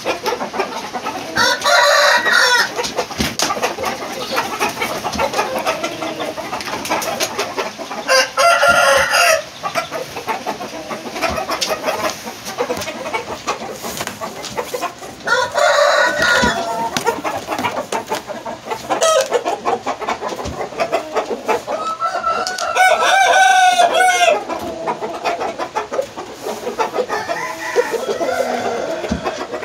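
Roosters crowing: four loud crows about seven seconds apart, each lasting a second or two, with quieter clucking and calls between.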